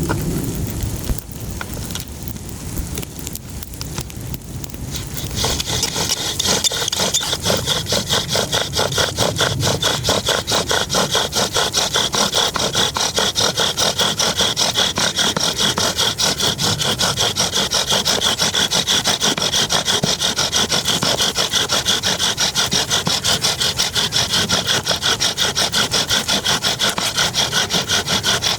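Hand saw cutting wood in fast, even, rasping strokes, several a second, starting about five seconds in after a quieter stretch of handling sounds.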